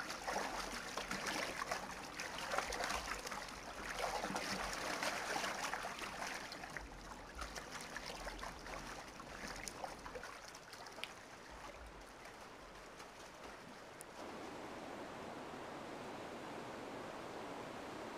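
Fast-flowing river water splashing and lapping, busier and choppier for the first several seconds, then settling into a steady, even rush of current near the end.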